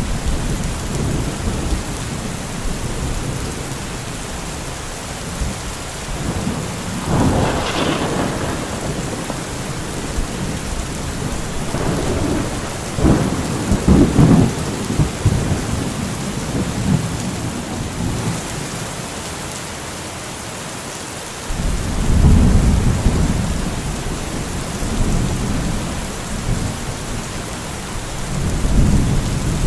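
Steady heavy rain with rolling thunder: a sharp crack of thunder about a quarter of the way in, further rumbles around the middle, and a sudden deep rumble about two-thirds through, with another near the end.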